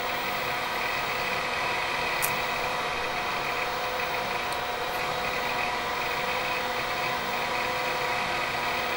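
Cooling fans of a running computer workstation, a steady hum with several steady tones, with one faint click about two seconds in.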